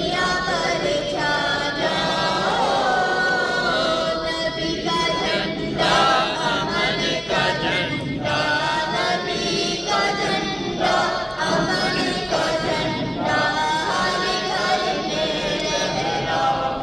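Many voices singing a devotional chant together in unison, without instruments.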